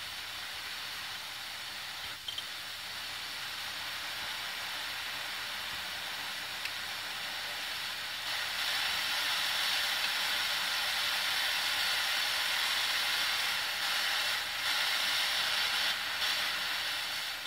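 Steady hiss of a pressurised jet of vapour and mist blasting upward from a nozzle on an insulated pipe. It grows louder about eight seconds in.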